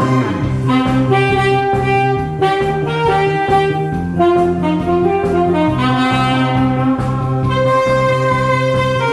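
Saxophone playing a slow melody of long held notes over a steady backing band with bass, in the style of a Korean trot song.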